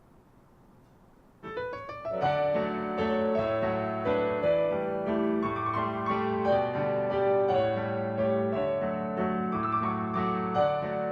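Faint hiss, then about one and a half seconds in a piano starts playing, a flowing piece of sustained chords with a melody over them.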